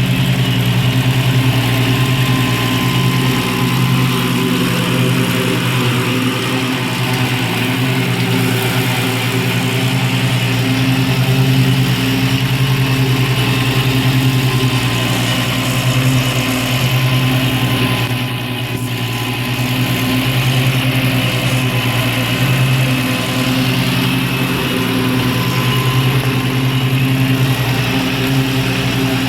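Iseki TX1510 compact tractor's engine running at a steady speed, with a slight, brief drop in level about two-thirds of the way through.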